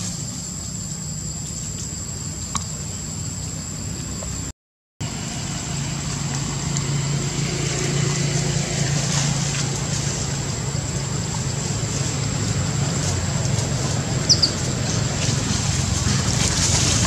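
Outdoor ambience: a steady low rumble under a constant thin high-pitched whine, with a brief high squeak about fourteen seconds in. The sound drops out to silence for about half a second near the five-second mark.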